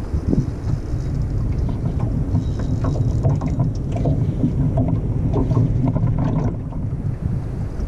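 Small boat's outboard motor running steadily, with wind on the microphone and scattered light knocks.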